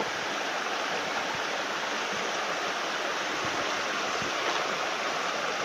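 Small, shallow stream running over stones and gravel: a steady rush of water with no change.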